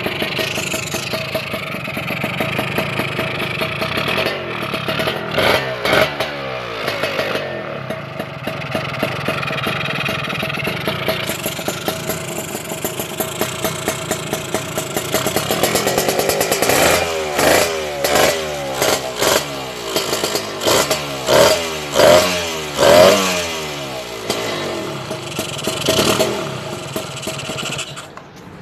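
Suzuki X3 motorcycle engine running through an aftermarket RF Pipe big-bellied Thai-look exhaust, idling, then blipped in a series of short throttle revs that rise and fall in pitch. The loudest revs come in the second half before it settles back to idle.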